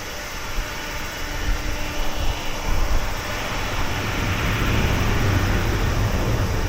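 Airbus A350-900 jet engines running, a loud rumble that swells to a peak about five seconds in and then begins to ease off.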